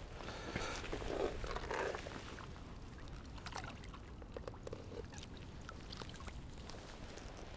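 Water splashing as a keepnet of skimmer bream is tipped into a lake's shallow margin, loudest in the first couple of seconds. Lighter splashes and drips follow as the fish flap and swim off.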